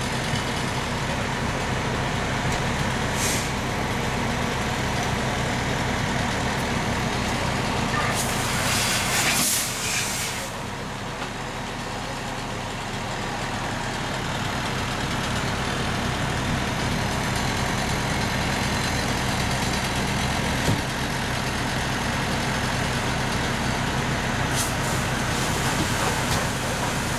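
Fire engine's motor running steadily, a low even hum. A burst of hissing comes about eight seconds in and lasts about two seconds, with shorter, fainter hisses before and after it.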